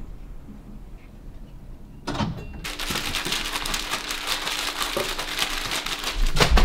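Faint room tone, then from about two seconds in a loud, continuous crinkling and rattling of plastic bags of fish breading being shaken and handled, with cardboard packaging rustling.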